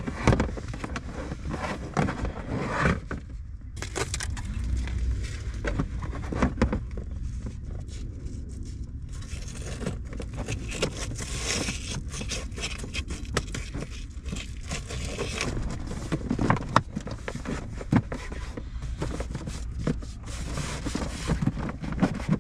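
Hands handling plastic Pioneer speaker pods on a car's rear trim shelf: rustling and scraping, with scattered light knocks and clicks as the pods are pressed and slid into place.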